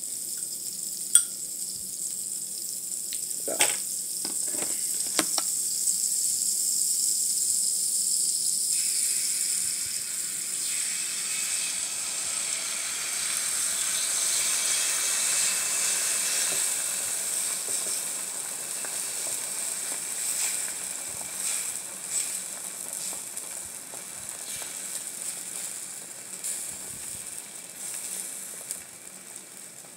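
Omelet mix of beaten egg, diced tomato and onion sizzling on a hot flat-top griddle. A few sharp clicks of a fork against the bowl come in the first five seconds. The sizzle grows fuller about ten seconds in, as the egg is poured onto the hot surface.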